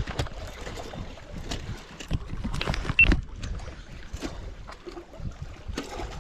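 Wind buffeting the microphone as an uneven low rumble, with scattered small clicks and one sharper knock about three seconds in.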